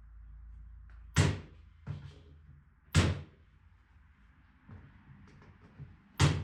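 Brads being driven into the wood of a bird feeder: three sharp knocks, the first about a second in and the last near the end, with a fainter knock shortly after the first.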